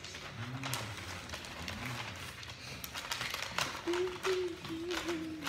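A faint low voice murmuring, then a held hum from about four seconds in, over a few light clicks of handling.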